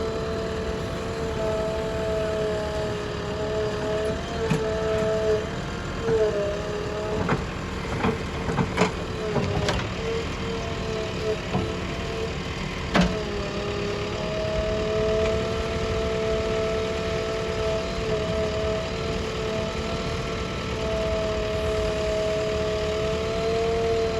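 Diesel engine of heavy earthmoving machinery running steadily under a constant whine that dips briefly in pitch a few times. A few sharp knocks and clatters come around the middle.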